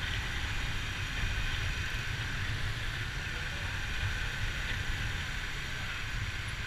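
Wind rumbling on the microphone over the steady running of a motorbike on the move.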